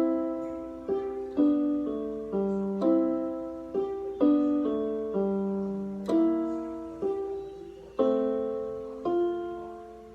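Piano playing a simple grade 1 piece at a steady, unhurried pace: single notes and small chords struck about twice a second, each ringing and fading. Near the end a final chord is held and dies away.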